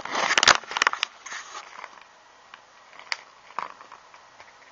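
Close handling noise: rustling and crackling for about the first second and a half, then a few faint clicks.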